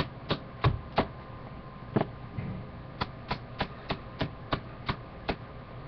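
A can of Skoal moist snuff being packed, its lid tapped in steady sharp taps about three a second to settle the tobacco, with a pause of a second or two in the middle.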